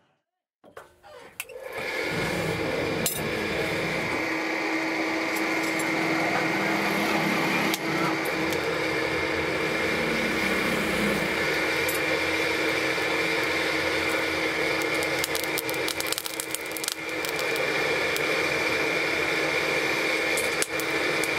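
Small electric forge blower starting up about a second and a half in, then running steadily: a constant hum over a rush of air blowing into the coal fire, with a few light clicks.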